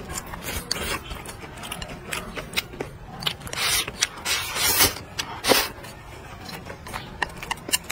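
Close-miked eating: a steady run of wet chewing clicks and chopsticks tapping a bowl, with a few loud slurps between about three and a half and five and a half seconds in as rice and peppers are shovelled from the bowl's rim into the mouth.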